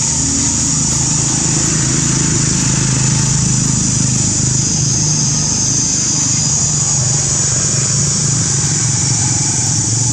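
A steady low hum, like an idling engine, under a continuous high-pitched buzz.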